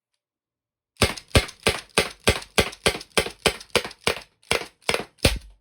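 Byrna SD CO2-powered launcher fired rapidly, fourteen sharp pops at about three a second. With the magazine not fully seated, a couple of the shots went off as blanks without a projectile.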